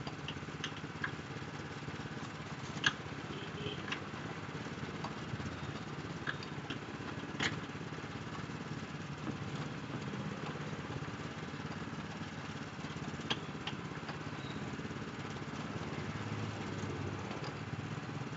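Small engine of a sugarcane crushing machine running steadily, with a few sharp clicks.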